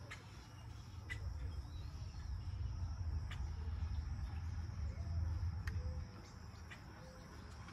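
Steady insect trilling with a few short, high chirps, over a low rumble that swells through the middle and eases off near the end.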